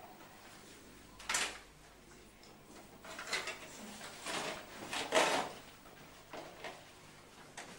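Several brief scuffing noises from people moving and handling things, the loudest about five seconds in.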